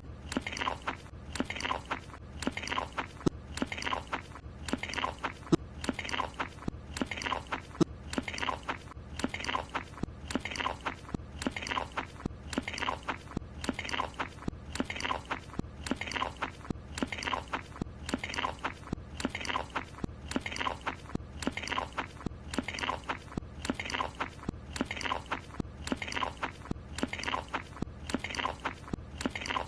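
Cartoon chewing sound effect of a croissant being eaten: wet, crunchy munching repeated in an even rhythm of about one and a half chomps a second.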